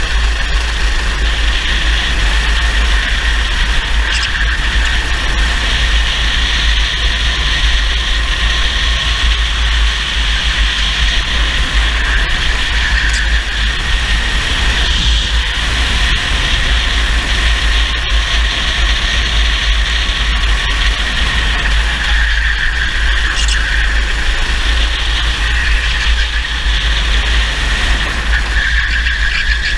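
Racing kart engine running at speed, heard from a camera mounted on the kart, with a steady low rumble underneath.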